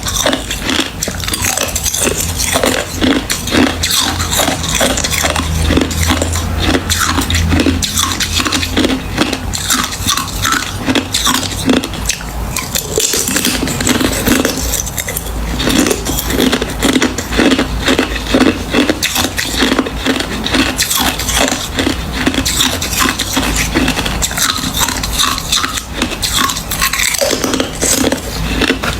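Close-miked crunching of hard ice being bitten and chewed: a continuous run of crisp crunches and crackles with no pause.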